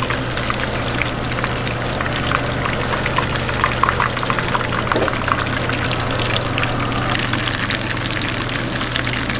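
Beer-battered fish pieces deep-frying in hot oil: a steady, dense crackling sizzle of bubbling oil, with a steady low hum underneath.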